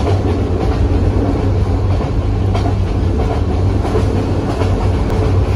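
Bangladesh Railway passenger coach in motion, heard from inside the carriage: a steady, loud low rumble of wheels and running gear, with occasional clacks from the track.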